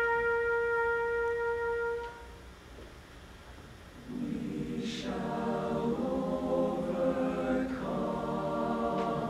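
A single steady held note stops about two seconds in; after a short pause, a mixed choir starts singing in harmony about four seconds in.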